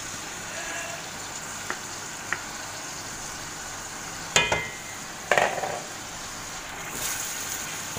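Raw yogurt-marinated chicken sizzling in hot oil and fried masala in a frying pan, a steady hiss. A cooking utensil taps the pan a few times, with two louder knocks about four and five seconds in, the first with a brief metallic ring.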